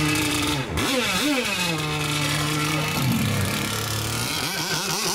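Small fuel engines of radio-controlled racing boats running and being revved on the start pontoon. The pitch holds steady, dips and climbs again, then settles lower and goes rougher near the end.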